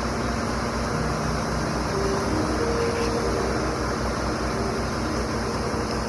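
Concrete pump truck running steadily under load: continuous engine and machinery noise with a fast low pulsing.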